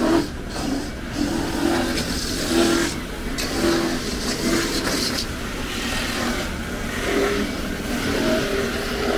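Steady background din of a busy market alley, with short, broken low sounds recurring through it.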